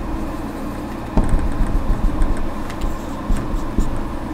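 A few short dabs and scratches of a marker on a whiteboard as a dotted line is drawn, over a steady low rumble of background noise.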